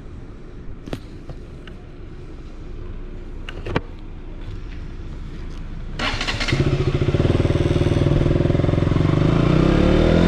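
KTM Duke 200's single-cylinder engine idling low, with a couple of sharp clicks, then about six seconds in the bike pulls away and the engine note climbs under acceleration.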